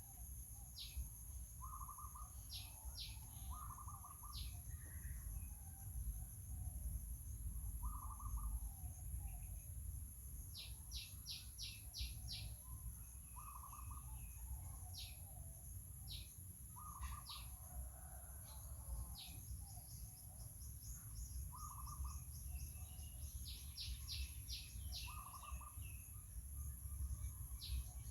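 Birds chirping: short, sharp high chirps, some single and some in quick runs of four or five, over a lower call repeated about every two seconds, with a steady low rumble underneath.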